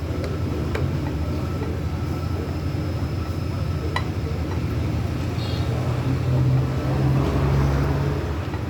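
Motorcycle engine running at idle, a steady low note that picks up and grows louder for a couple of seconds past the middle before settling.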